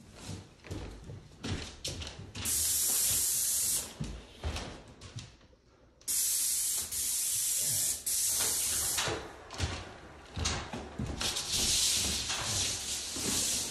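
Paint spray gun hissing in four trigger-pulled bursts as it is passed over the doors: one of about a second and a half, two close together in the middle, and a fainter, longer one near the end. Light knocks between the bursts.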